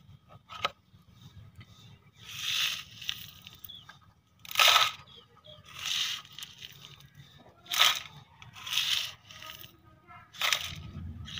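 Small plastic toy shovel scraping into a pile of gravel and tipping the stones into a plastic toy trolley: a run of short crunching scrapes, about one every second or two, with a few sharper rattles as the gravel drops in.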